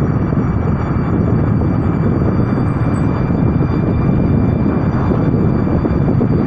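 A 2011 Volkswagen Voyage on the move: a steady drone of road and running noise, with faint thin high tones held above it.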